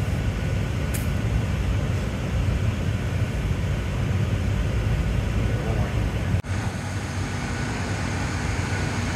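Steady low roar of a glassblowing studio's fans and furnace burners, with a short sharp tick about a second in and a brief break about six and a half seconds in.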